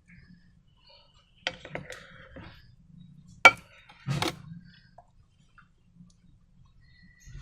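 Hard objects clicking and tapping: a cluster of small clicks about a second and a half in, then a single sharp click, the loudest, at about three and a half seconds, and another tap just after four seconds.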